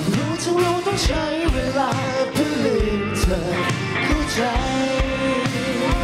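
Live band playing a Thai pop-rock song, with a solo singer's voice carrying the melody over a steady drum beat.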